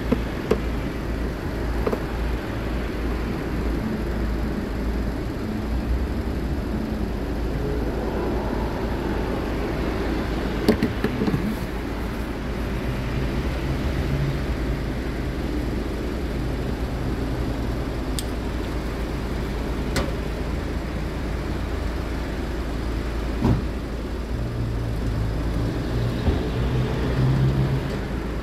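Fuel dispenser running steadily as diesel is pumped into a car's tank: a constant low hum and whir, with a low tone that comes and goes in the second half and a few light clicks.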